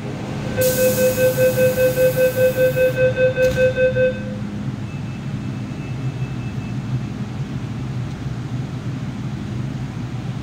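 MTR metro door-closing warning: rapid beeping, about four beeps a second, for about three and a half seconds, starting with a high hiss. Under it runs the steady low hum of the train standing at the platform.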